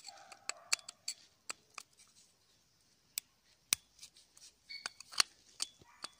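Flat screwdriver clicking and scraping in the slow jet of a Bajaj three-wheeler's carburetor as the jet is unscrewed: a scatter of sharp, irregular metal ticks, with a brief squeak a little before the end.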